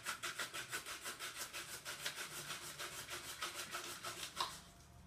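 An onion rubbed quickly back and forth over a handheld plastic vegetable slicer, about five scraping strokes a second, stopping near the end with one sharper stroke.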